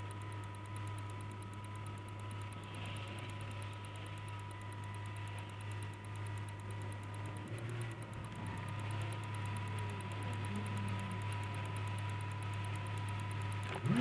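Car engine idling, heard from inside the cabin as a steady low hum with thin steady high tones over it; faint passing sounds come in about halfway through.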